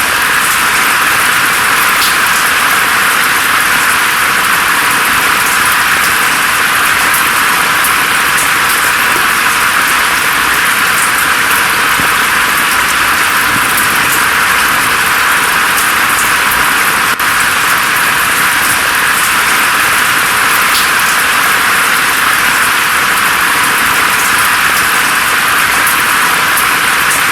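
Steady rain falling on forest foliage: a continuous, even hiss with little low end, flecked with faint scattered drip ticks.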